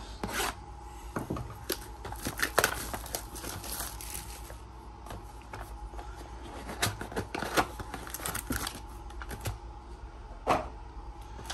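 Cardboard trading-card box and its packaging being opened and handled: scattered clicks, scrapes and crinkling, louder in a few bursts of handling.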